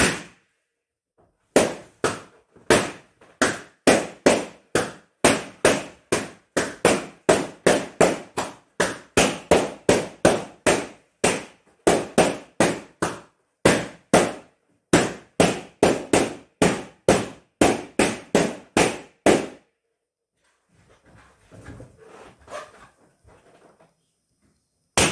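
Latex balloons popping one after another, a rapid series of sharp bangs about two a second with a short room echo after each. The bangs stop for a few seconds of faint rustling, then one more bang comes at the end.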